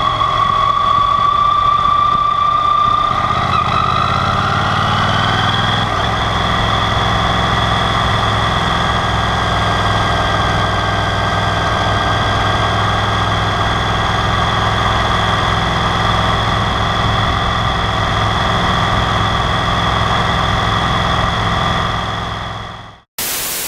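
Yamaha TDM 850 motorcycle's parallel-twin engine running as the bike rides along, with a steady high whine over it. The sound fades out near the end and a hiss of static starts.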